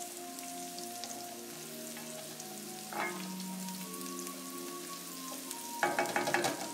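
Garlic, shallots and sliced hot pepper sizzling steadily in oil and butter in a stainless steel sauté pan while a wooden spoon stirs them; the spoon clatters against the pan briefly about three seconds in and again in a quick run near the end.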